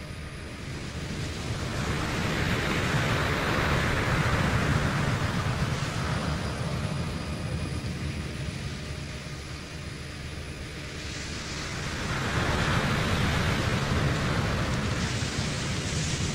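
A rushing noise over a low rumble that swells and fades twice, in the manner of an electroacoustic soundtrack.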